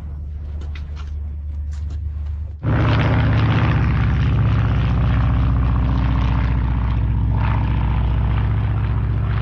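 Low engine rumble, then about two and a half seconds in an abrupt switch to a loud, steady propeller airplane engine running close by.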